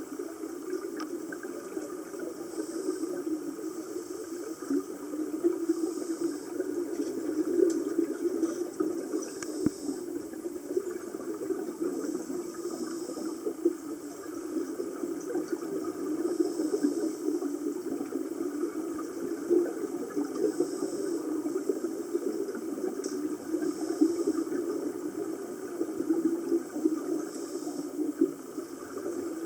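Scuba diver breathing underwater through a regulator: a rush of exhaled bubbles about every three and a half seconds over steady underwater noise.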